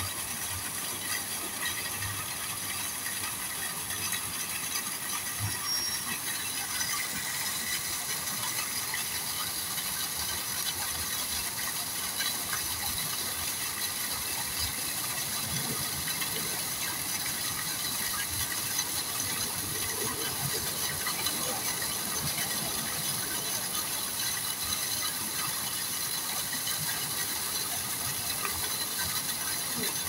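Steady, dense crackling patter of water at the surface of a crowded koi pond, small drops and splashes running on without a break.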